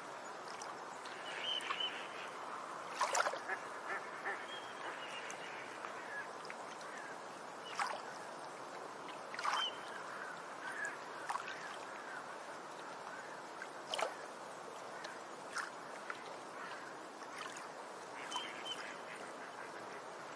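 Short animal calls, a dozen or so at irregular intervals, loudest about three seconds in and again near the middle, over a steady background hiss.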